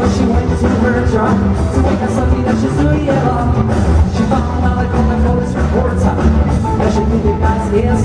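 Live rock band playing, with a voice singing over a steady beat and heavy bass.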